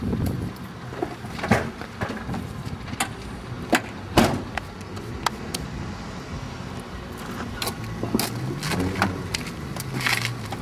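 Knocks and clunks around a minivan as a plastic Big Wheel tricycle is loaded into the rear hatch, with one loud clunk about four seconds in and a car door opened near the end, over a low steady hum.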